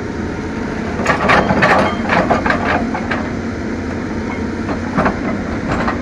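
Cat 320D excavator's attachment working through rock, with irregular cracking and crunching of rock over the steady running of the diesel engine.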